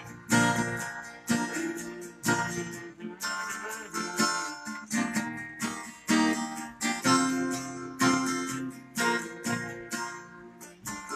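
Solo acoustic guitar strumming chords in a slow, even rhythm, a new strum about once a second, each left to ring and fade.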